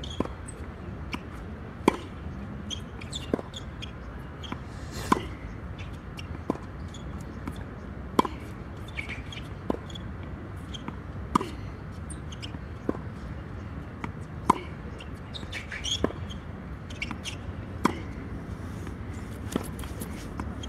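Tennis ball struck back and forth in a steady baseline rally, with sharp racket hits and bounces on a hard court about every second and a half.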